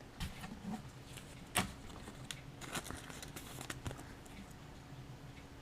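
Pokémon trading cards being handled and flipped through by hand: soft, scattered clicks and rustles, with one sharper tap about one and a half seconds in.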